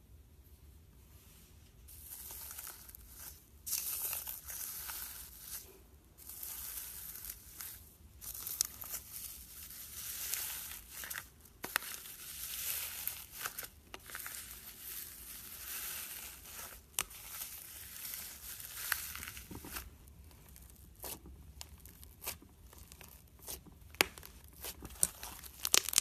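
Slime being squeezed and stretched by hand, giving irregular crackling, tearing sounds, with a few sharp pops near the end.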